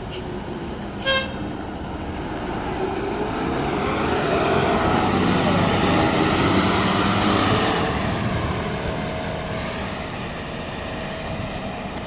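Transit bus driving past, its engine and drivetrain getting louder as it passes about halfway through, then fading as it drives away. A short beep sounds about a second in.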